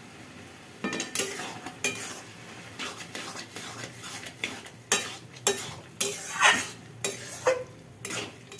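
A steel spatula stirring and scraping soft-cooked bottle gourd around a metal kadai, clinking against the pan, starting about a second in; the strokes come about twice a second in the second half. A low sizzle of the cooking runs underneath.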